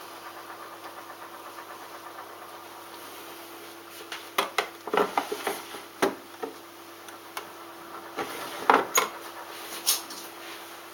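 Balay T-8295 washing machine at the end of its programme 7: a steady low hum, then from about four seconds in a run of irregular sharp clicks and knocks.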